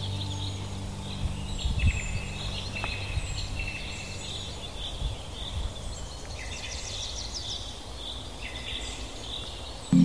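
Several songbirds singing and chirping in a forest, a mix of short trills and high down-slurred notes, over a soft low rustle of ambient noise. A soft sustained music chord fades out in the first couple of seconds.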